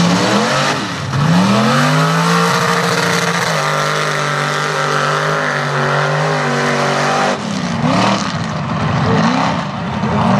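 Chevy mega truck's engine revving hard under load in deep mud: the revs climb about a second in and hold high for several seconds, drop off about seven seconds in, then rise and fall in quick bursts of throttle near the end.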